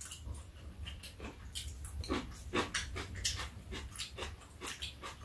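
People eating ramen noodles: close chewing and slurping mouth sounds, a string of short, irregular wet smacks and clicks.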